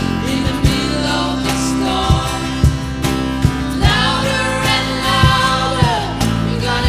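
Gospel song with singing over a band: steady chords, a regular beat of low drum thumps and a guitar.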